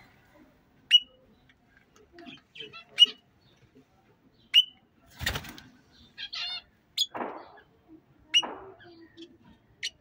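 Caged red-rumped parrots giving short, sharp chirps every second or two, with a warbling call about six seconds in. A few brief noisy bursts, the loudest about five seconds in, come between the calls.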